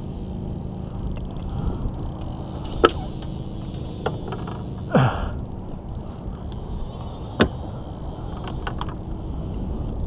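Steady wind noise on the microphone over open, choppy water, with three sharp knocks. The middle knock, about halfway through, slides quickly downward in pitch.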